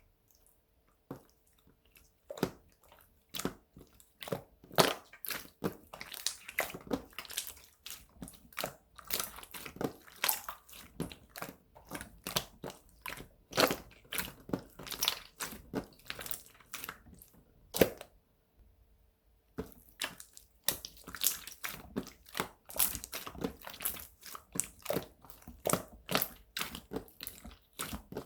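Slime being squished and pressed by hand, giving rapid sticky clicks and air-bubble pops with a short pause about two-thirds of the way through.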